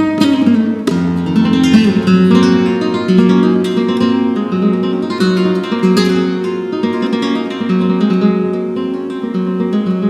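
Flamenco guitar playing a granaína: a steady flow of plucked melodic notes, broken by a few sharp strummed chords.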